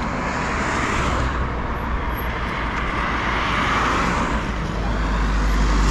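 Steady rush of road traffic passing on a highway, with wind noise on the microphone; a low rumble grows near the end.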